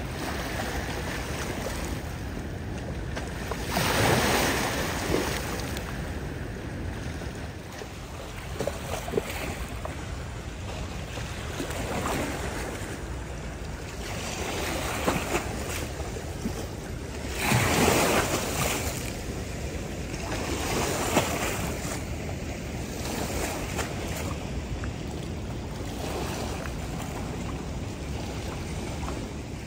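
River water lapping and washing against the shore over a steady rushing, swelling louder twice: about four seconds in and again a little past halfway. Some wind rumbles on the microphone.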